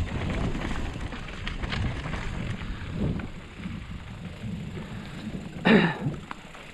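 Mountain bike rolling fast down a rocky trail and onto packed dirt: tyres rumbling and rattling over stones and roots, with wind buffeting the helmet-mounted camera microphone, rougher in the first half and easing as the trail smooths out. Near the end, a short shout from the rider, falling in pitch.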